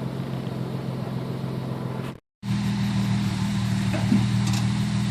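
A four-wheel-drive's engine idling steadily. The sound drops out briefly a little over two seconds in, then the idle returns a little louder.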